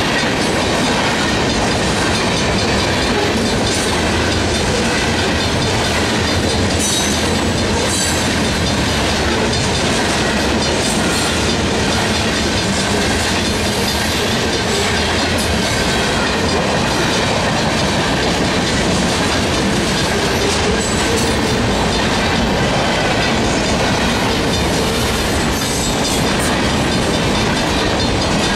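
Freight cars of a long mixed freight train rolling steadily past: a continuous, even rumble and rattle of steel wheels on rail, with scattered clicks as wheels pass over rail joints.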